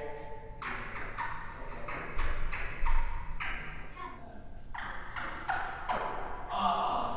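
Table tennis ball ticking back and forth off the table and paddles in a rally: a quick, uneven series of sharp taps, about two a second.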